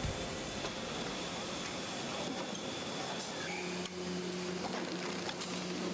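Banknote packaging machinery running: a steady mechanical whirr with hiss. A low steady hum joins about three and a half seconds in.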